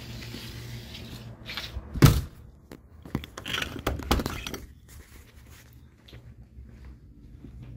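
A single loud thunk about two seconds in, followed by a quick cluster of knocks and rustling over the next couple of seconds, then quieter handling noise.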